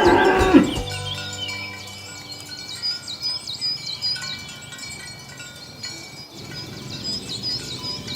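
A cow's loud moo ends within the first second, followed by repeated high bird chirps over steady, chime-like background music.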